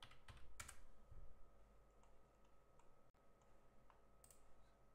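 Faint clicks of a computer keyboard and mouse: a few keystrokes and clicks close together in the first second or so, then a few fainter scattered clicks.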